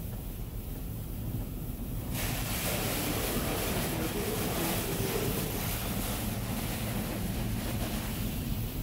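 High-pressure spray from a touchless automatic car wash hitting a cargo van's metal body, heard from inside the empty van. A steady rush of water that comes on suddenly about two seconds in, over a low rumble, in what should be the sealant pass.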